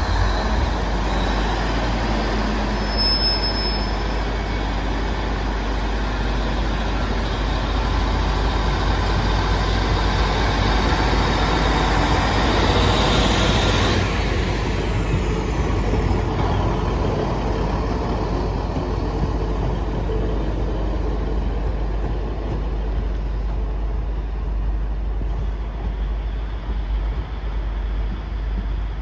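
Class 155 diesel multiple unit pulling out under power, its underfloor diesel engines running as the carriages roll past. The sound is loudest about halfway through and eases a little as the train draws away.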